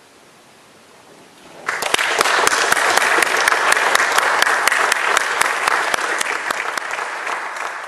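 Audience applauding, starting suddenly just under two seconds in after a short quiet, with single sharp claps standing out from the rest.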